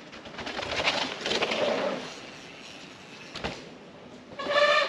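Specialized Stumpjumper Evo mountain bike rolling fast over a dirt trail into a jump, its tyres rising in a rushing, ticking noise. About three and a half seconds in comes a sharp thud as it lands, then a person's short whoop near the end.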